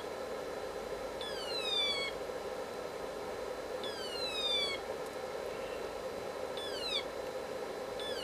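Home-built electronic siren circuit heard through a signal tracer: a series of falling electronic wails, each dropping in pitch, repeating about every two to three seconds, the later sweeps shorter, as the potentiometer coupling the oscillator's first stage to the second is turned. A steady hum runs underneath.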